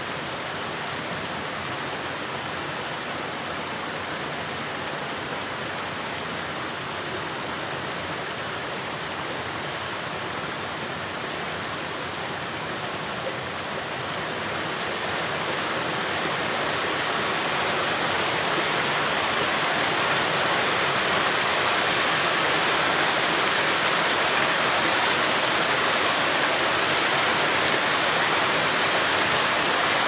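Mountain stream rushing and splashing in small cascades over mossy boulders: a steady water rush that grows louder about halfway through.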